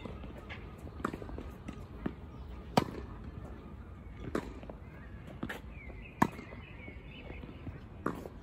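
Tennis rally: sharp pops of the ball being struck by rackets and bouncing on a hard court, one every second or two, the loudest two about three and a half seconds apart.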